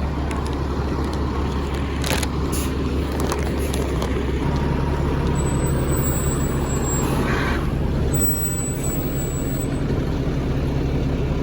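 Fire department ladder truck's engine running steadily, a continuous low drone.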